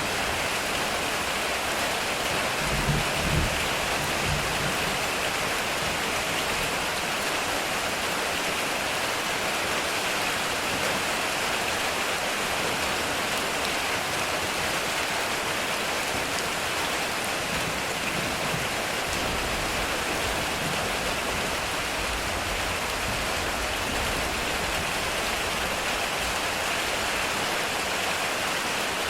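Heavy rain drumming steadily on a metal roof, with low rumbles of distant thunder, the clearest about three seconds in.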